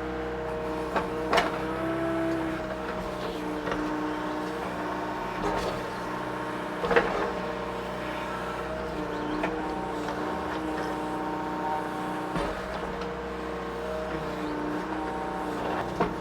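Mini excavator's diesel engine running under load, with its hydraulic whine shifting in pitch as it digs at a tree stump. Sharp knocks and cracks come every few seconds, the loudest about seven seconds in.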